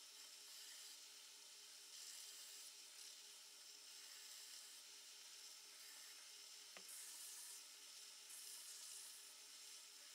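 Belt grinder running with a green abrasive belt, a small steel blade cut from an old planer blade held against it: a faint steady hiss that swells a few times as the steel is pressed on, with one brief falling squeak partway through.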